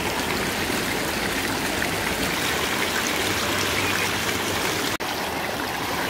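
Mountain stream rushing and splashing over rocks and a small rock ledge, a steady running-water sound. It cuts out for an instant about five seconds in.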